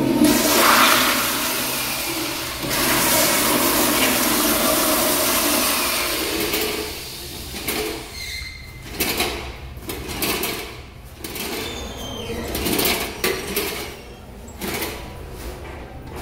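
Commercial public-restroom toilet flushing: a loud rush of water for about the first seven seconds, then quieter, uneven noise broken by short bursts.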